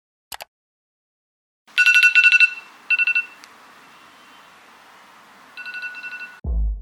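An electronic ringing tone trilling in rapid high pulses, in three bursts with a short click before them. Music with a heavy bass beat cuts in near the end.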